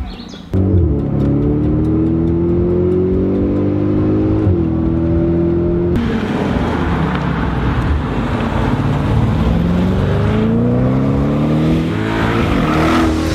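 Audi S6's twin-turbo 4.0 TFSI V8 through an aftermarket Unitronic turbo-back exhaust, accelerating hard with the engine note climbing in pitch again and again. The sound jumps abruptly about half a second in and again about six seconds in.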